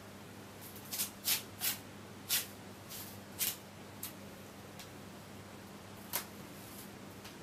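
A large striped feather swished and brushed across a laminate wood floor in quick strokes. It makes a run of short rustling swishes in the first few seconds and one more about six seconds in.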